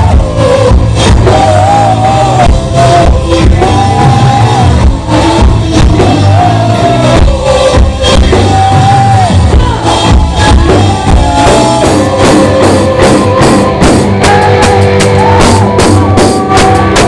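A live rock band playing loudly, with a drum kit keeping an even beat and a gliding melody line that is most likely sung vocals.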